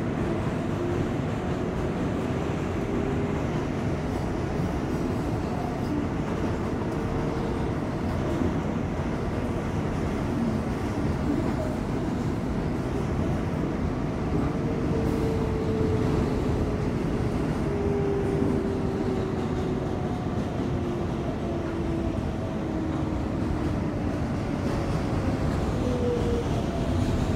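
R188 subway car running, heard from inside: a steady rumble of the wheels and running gear, with a faint whine that glides up and down in pitch.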